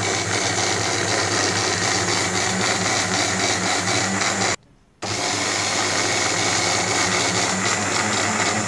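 Electric countertop blender running steadily, blending boiled carrot with milk and sugar. It cuts out abruptly for about half a second midway, then runs on.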